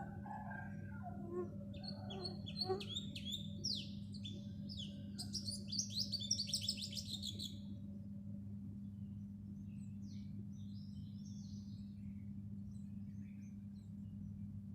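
House sparrows chirping: a string of short, falling chirps, thickening into a fast run about five to seven seconds in, then fainter scattered chirps. A steady low hum runs underneath.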